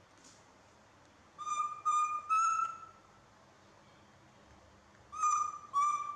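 Baby macaque giving clear, high coo calls: three in quick succession, then two more about three seconds later. These are a young monkey's calls when left alone by its keeper.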